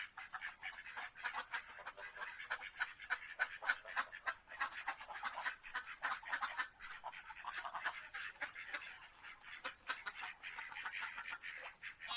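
A flock of birds calling continuously, many short calls overlapping in a dense chatter.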